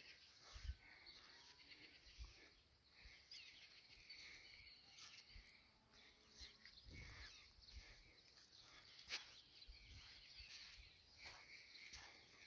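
Near silence outdoors: faint birds chirping on and off, with a few soft low thumps.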